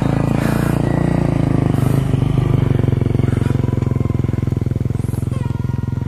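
Single-cylinder dirt bike engine idling steadily just after being started, with an even, rapid pulse.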